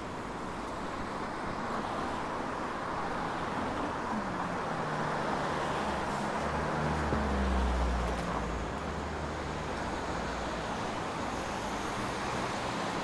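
Street traffic on a busy city road: a steady rush of passing vehicles, with one vehicle's engine rising to a low rumble about halfway through and then fading.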